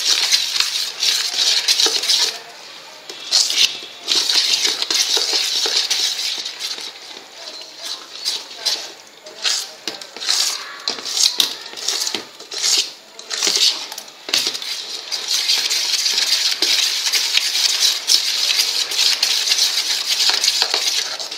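Steel spoon stirring thick batter in a stainless steel bowl: metal scraping and clinking against the bowl's side. The scraping is steady at the start and again over the last few seconds, with separate clinks and scrapes in between.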